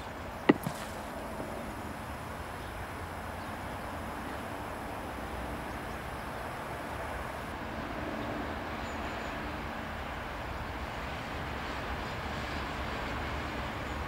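Distant AS 355 Ecureuil twin-engine helicopter in flight: a steady rushing drone that grows gradually louder, with one sharp click about half a second in.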